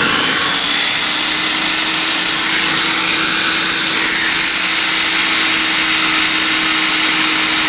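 Compressed air blowing out a carburetor's passages in a continuous loud hiss, with a thin high whistle over it, in place of cleaning the passages with wires.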